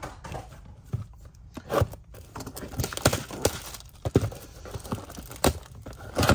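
Cardboard trading-card boxes being handled and opened by hand: a string of sharp taps and knocks with cardboard rustling and tearing in between.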